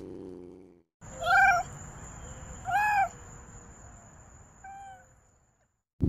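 A cat meowing three times: short calls that rise and fall in pitch, the last one fainter. A faint steady high whine sounds behind them. Before the meows, in the first second, a lower call fades out.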